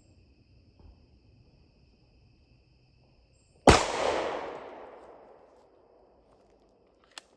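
A single pistol shot from a Glock 21 Gen 4 firing .45 ACP full metal jacket, about three and a half seconds in, its report echoing away over about two seconds.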